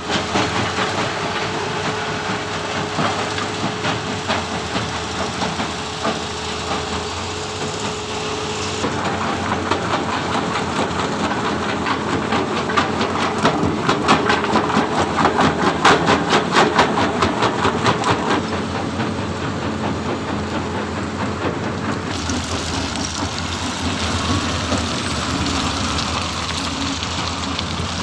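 Diesel-powered stone crusher and excavator running. A steady hum in the first third gives way to a dense, rapid clatter that peaks in the middle, then settles back to steady machine noise.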